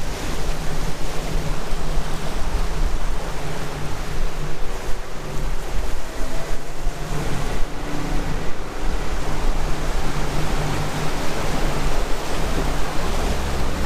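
Boat underway on the river: steady wind rushing over the microphone and water rushing past the hull, with the low drone of the boat's motor underneath.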